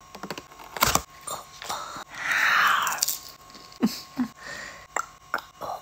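Plastic clamshell container clicking as it is handled, then biting into and chewing flaky baklava, with sharp crunchy clicks and mouth sounds.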